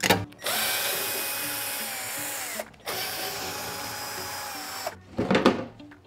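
Cordless screwdriver running twice, about two seconds each, driving out the washing machine's panel screws; the first run dies away with a falling pitch. A short knock comes at the start and a louder clatter near the end.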